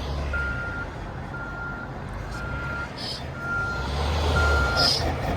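A vehicle's reversing alarm beeping steadily about once a second, a single high tone, over a low engine rumble.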